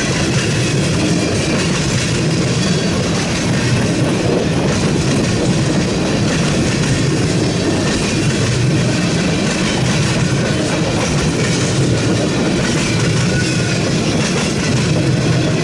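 Tank cars of a manifest freight train rolling past, with a loud, steady noise of steel wheels running on the rails.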